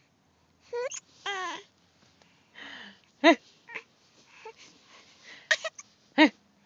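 A person hiccuping, with sharp, loud hiccups about three seconds in and again near the end, between short gliding giggly vocal sounds.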